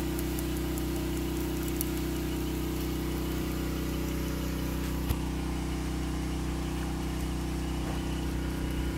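An engine idling steadily nearby, giving an even low hum. A single short click sounds about five seconds in.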